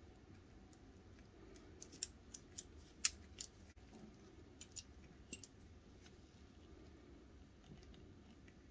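Small plastic puzzle pieces clicking against each other as they are slid apart and pulled loose. There is a cluster of about eight short, sharp clicks in the middle, the loudest about three seconds in, over a faint steady hiss.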